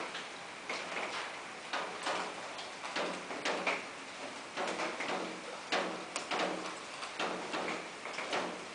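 A spoon tapping and scraping against a dish as dog food is served, in a run of irregular sharp clicks about once or twice a second.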